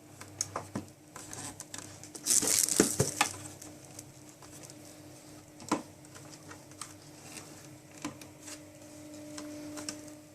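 Plastic handle of a Panasonic upright vacuum cleaner being worked into its socket in the body: scattered clicks and knocks, a short scraping rasp about two seconds in and a sharper knock near six seconds. The new fitting is stiff and doesn't want to go in.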